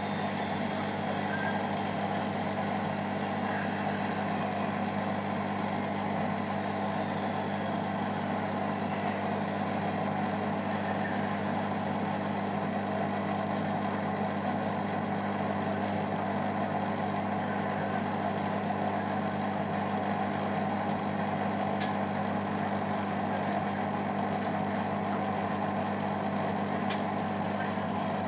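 Beko washing machine in its final spin: a steady motor hum and drum rumble, with a high whine that falls slowly in pitch over the first dozen seconds or so.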